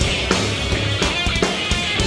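Industrial metal band playing live: electric guitar over a drum kit, with sustained low notes under sharp, regular drum hits.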